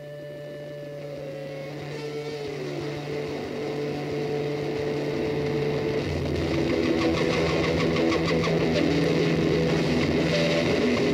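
Background music fading in: held notes that change pitch over a steady low drone, joined about halfway through by a fast, even ticking beat.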